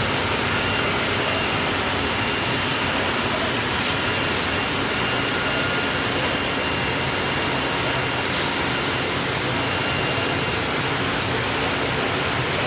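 C.R. Onsrud 381G18CD CNC router running: a steady machine noise with a thin high whine that comes and goes, and a short high hiss about every four seconds.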